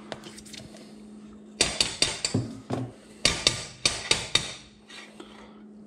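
A utensil knocking and scraping against a small nonstick saucepan as spoonfuls of butter are knocked off into it. About a dozen sharp taps come in a cluster from about a second and a half in, over a faint steady hum.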